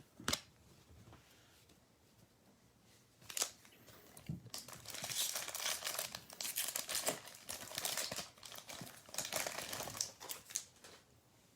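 Plastic trading-card pack wrapper being torn open and crinkled, a dense crackle that starts about four seconds in and keeps on until near the end.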